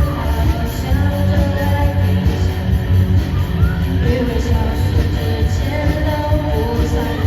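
A live band playing a pop-rock song with a singer, with strong, steady bass under the voice.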